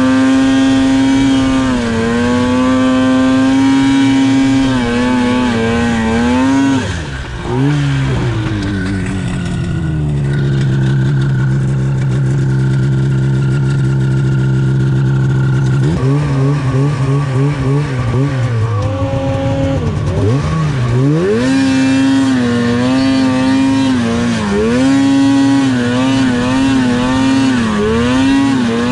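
Polaris Pro RMK 800 snowmobile's two-stroke engine held at high revs, then dropping to a steady idle about seven seconds in. After several seconds it revs up and down in quick blips and climbs back to high revs, wavering there.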